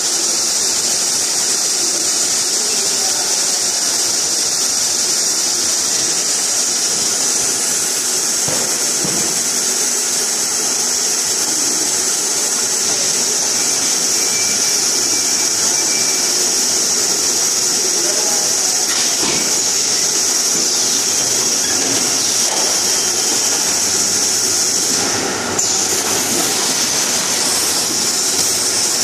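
Bottled-water filling and carton-packing line running: a steady, loud, high hiss of machinery with a few clunks along the way.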